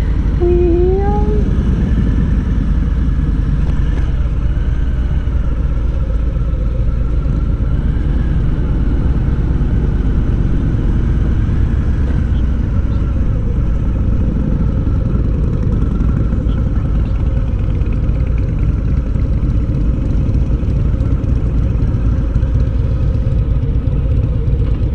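2019 Harley-Davidson Low Rider's Milwaukee-Eight 107 V-twin running at low speed, a steady loud rumble as the bike rolls slowly into a lot.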